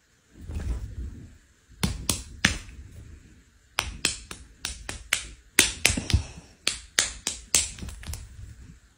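Two hairless Sphynx cats play-fighting on a couch. From about two seconds in comes an irregular string of sharp slaps and pats, two or three a second, as their paws strike each other's bare skin, with soft thumps underneath.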